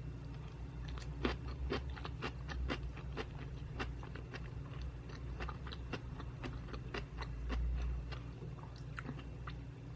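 Close-miked chewing of a mouthful of butter jangjorim bibimbap (rice with soy-braised beef), a series of sticky, wet mouth clicks, a few each second.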